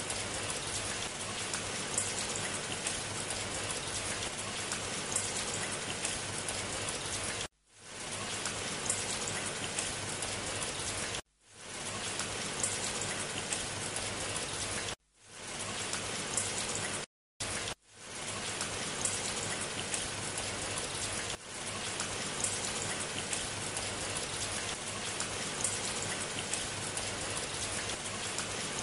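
Steady hiss of heavy rain with fine pattering ticks. The sound cuts out briefly four times in the middle and fades back in each time.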